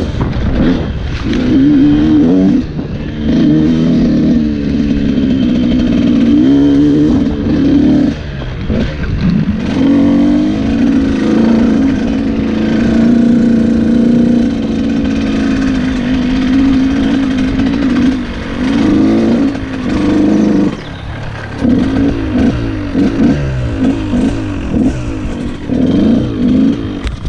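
KTM EXC 125 two-stroke enduro motorcycle engine being ridden, its revs rising and falling with the throttle. The engine holds a fairly steady pitch for a stretch in the middle, then gives a run of short, quick revs near the end.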